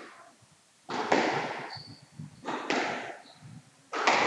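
Squash rally: the ball cracked by rackets and off the court walls, three shots about a second and a half apart, each ringing briefly in the court. A short high squeak of court shoes follows the first shot.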